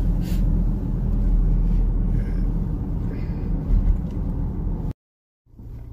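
Steady low road and engine rumble inside a moving car's cabin. Near the end the sound cuts out completely for about half a second, then the rumble resumes a little quieter.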